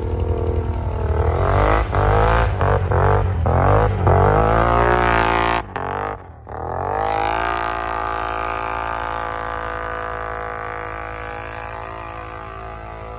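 ATV engine revving hard in quick rising surges as it churns through deep snow. The note cuts out briefly about six seconds in, then holds at a steady high drone that slowly grows fainter.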